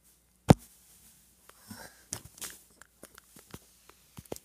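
Handling noise on a phone held close for a selfie: one sharp knock about half a second in, then faint scattered rustles and small clicks.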